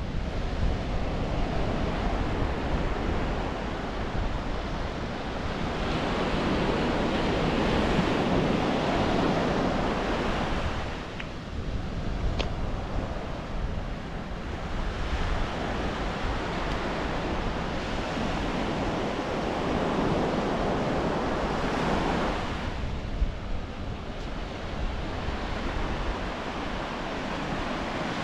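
Ocean waves breaking and washing up a sandy beach: a steady rushing surf that swells and falls back as each set comes in. A low wind rumble sits on the microphone underneath.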